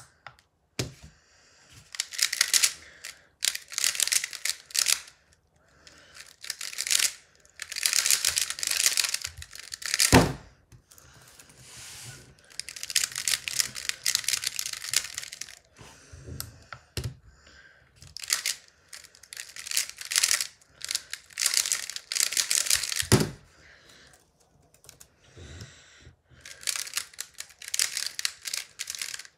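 Square-1 puzzle being turned at speed: bursts of rapid plastic clicking and clacking as the layers twist and the middle slice flips, with short pauses between bursts. There are two loud, sharp knocks, a little past ten seconds and again near 23 seconds.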